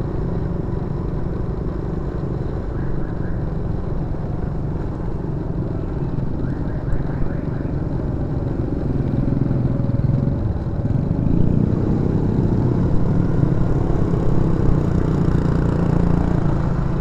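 Motor scooter engine running underway, with road and wind noise, and getting louder from about eleven seconds in.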